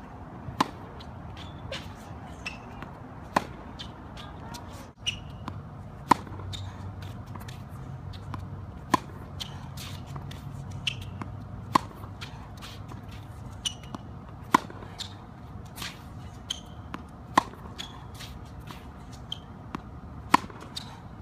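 Tennis racket striking the ball in a baseline rally: a sharp, loud hit about every three seconds, with fainter knocks in between.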